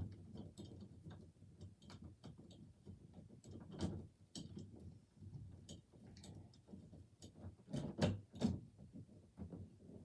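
Scattered clicks and knocks of a door and its hinges being handled while it is worked back into place. The loudest knocks come about four seconds in and twice close together near the end.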